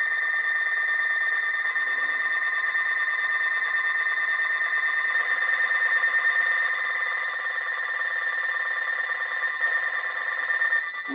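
Weather-radio alert tone: a steady electronic alarm tone held unbroken for about eleven seconds. It is the attention signal that announces a severe thunderstorm warning.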